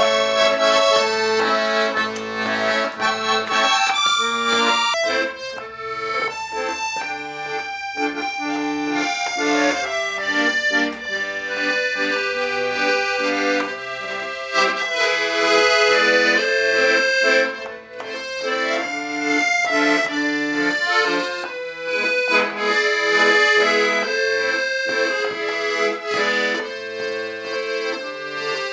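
Accordion playing a tune, a melody over held chords with the notes changing continuously; the playing briefly eases off about two-thirds of the way through.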